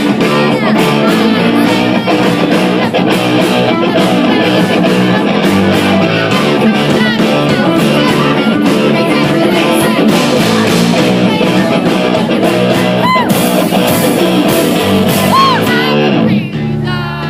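A rock band playing live through a venue PA system, with guitar and a lead vocal singing. The low end drops out briefly near the end.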